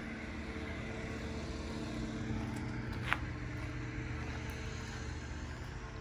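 Steady low machine hum with a few faint steady tones running through it, and one short high squeak about three seconds in.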